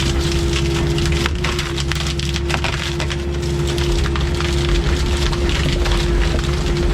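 Excavator running with a steady humming tone over a low engine rumble, while brush and branches crack and splinter again and again as the machine tears through them.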